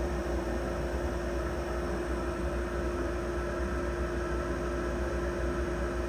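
Wood lathe running steadily, its motor giving a constant hum with low rumble and hiss.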